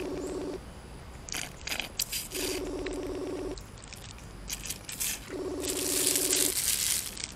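A drink sucked through a plastic straw from a plastic bag, with a loud slurp about six seconds in. Under it, a phone's ringback tone sounds over the speaker: a short buzzing tone repeating about every three seconds, three times, as the call goes unanswered.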